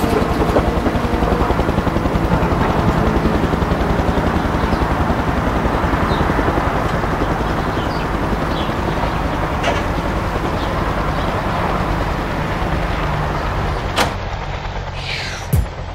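Steady outdoor vehicle-type noise with a low throb, then a sharp click about fourteen seconds in and a car door thudding shut near the end.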